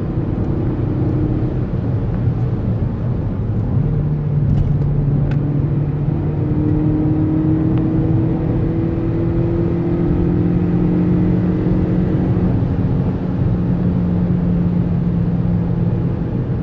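Engine and road noise of a Volkswagen car, heard from inside the cabin while driving: a steady hum whose engine note climbs slowly in pitch through the middle.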